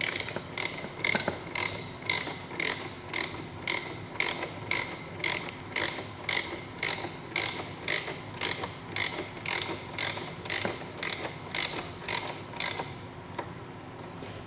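Ratchet wrench clicking in an even run of about three clicks a second, working a hex bit in the bolt at the steering damper's rod end. The clicking stops about a second and a half before the end.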